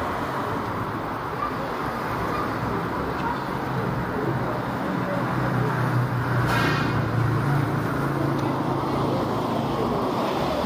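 Road traffic noise, with a motor vehicle passing close by: its engine hum swells through the middle and fades again. A brief hiss about six and a half seconds in.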